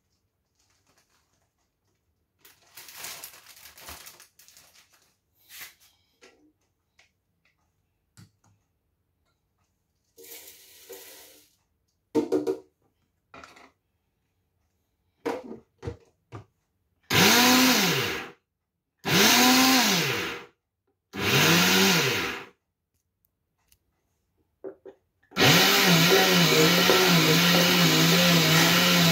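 Countertop blender grinding porridge oats. It is pulsed three times in a row, each short burst spinning up and winding down, and then about four seconds before the end it runs continuously while a tamper is worked through the lid. Before that there is the rustle of oats being poured from a bag and a few clicks as the lid is fitted.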